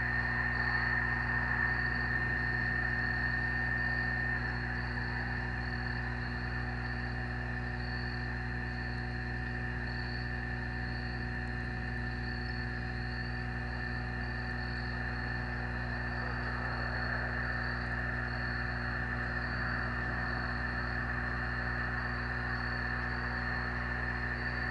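Crickets chirping steadily in a high, even pulse about twice a second, over a constant electrical hum and a steady high whine that eases after about four seconds.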